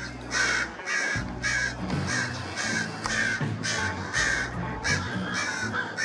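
A steady series of harsh animal calls, two to three a second, over background music with low held tones.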